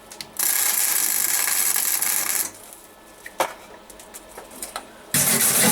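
Electric arc welder laying a tack weld on thin sheet steel: a steady crackling hiss of about two seconds that stops abruptly, then a sharp click, and another short loud burst near the end.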